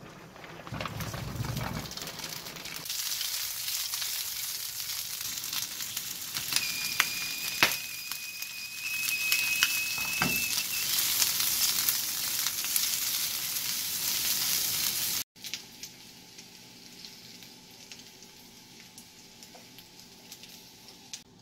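Small Vienna sausages sizzling in hot oil in a nonstick frying pan, with a few sharp utensil clicks and a thin steady whine for a few seconds midway. The sizzling cuts off suddenly near the end, leaving a quieter stretch with faint ticks.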